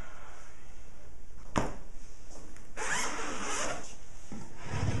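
A wooden dresser drawer sliding in its runners with a rasping rub, heard twice, the second near the end; a single sharp click comes before it, over a steady background hiss.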